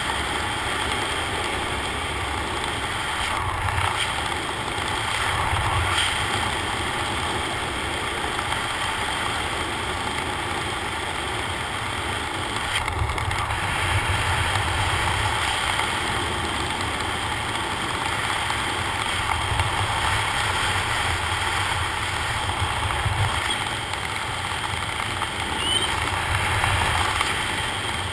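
Wind rushing over the camera microphone during a parachute descent under an open canopy: a steady rush with a low rumble that swells and eases every few seconds.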